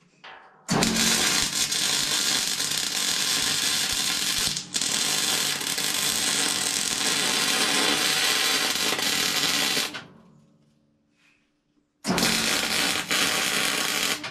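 MIG welding arc on steel tube, a steady crackling hiss. One long weld runs about nine seconds with a short break about four seconds in. After two seconds of pause, a second, shorter weld starts near the end.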